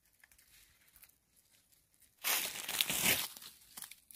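Near silence, then about two seconds in a burst of crackling, rustling leaves lasting about a second, followed by a few lighter crackles: a weaver-ant leaf nest being poked and shaken with a pole-mounted woven bamboo basket to knock the eggs out.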